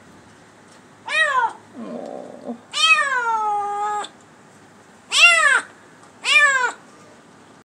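Kitten meowing four times, each call rising and then falling in pitch; the third is a long, drawn-out meow of about a second.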